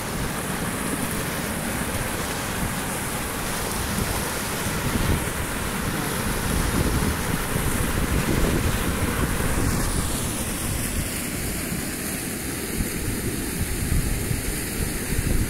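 Strong flow of water gushing out of a large concrete pipe outfall and churning into a stream: a steady rushing, splashing noise.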